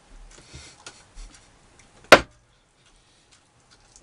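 A small emptied glass set down on the table with a single sharp knock about two seconds in, after a few faint rustling sounds.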